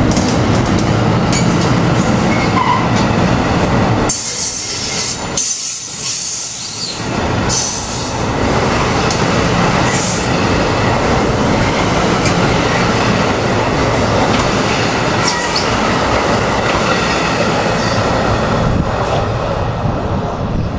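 NJ Transit Multilevel double-deck coaches rolling past at close range: steady, loud wheel-on-rail noise.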